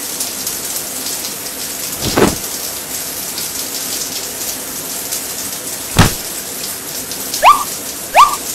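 Shower water running with a steady hiss. Two short sudden sounds come about two and six seconds in, and three short rising squeaks come near the end.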